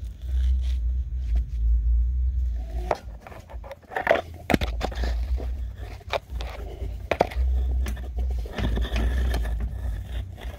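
Video inspection camera scraping and knocking against the rough, soot-coated masonry walls of a chimney flue, with a deep rubbing rumble that comes and goes. Sharp clicks and scrapes cluster between about three and eight seconds in.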